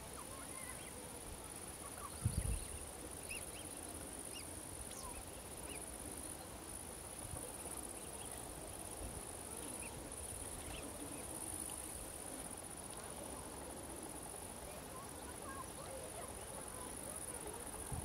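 Steady high-pitched insect chirring, with scattered short, faint high chirps over it and a brief low thump about two seconds in.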